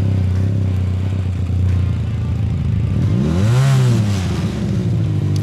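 Motorcycle engine idling steadily, with a single throttle blip about three seconds in that rises and falls within a second before settling back to idle.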